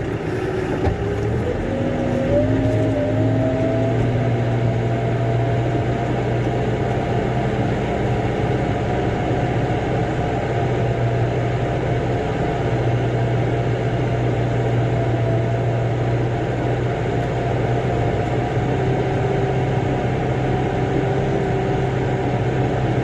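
Motor vehicle engine picking up speed about a second in, its pitch climbing for a few seconds, then running steadily at a constant pace under way.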